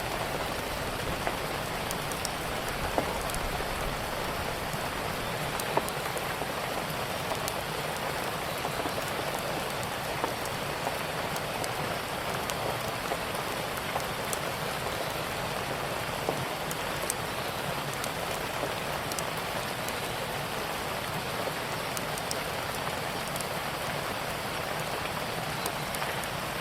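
Steady rain falling on a surface, an even hiss with scattered light ticks and clicks throughout.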